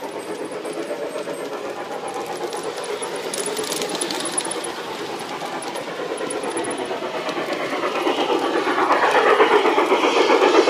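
LGB garden-scale model train running on its track, the wheels making a quick rhythmic clatter with a motor hum underneath. It grows louder near the end as the train passes close by.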